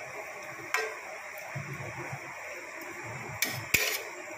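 Metal spatula scraping and knocking against a steel kadai while stirring chicken pieces in gravy, over a steady hiss. A sharp clink and scrape near the end is the loudest sound.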